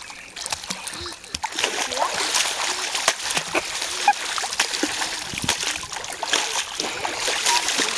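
Splashing in a swimming pool from a child kicking with swim fins at the surface, a rapid irregular churn of water that grows denser and louder about a second and a half in.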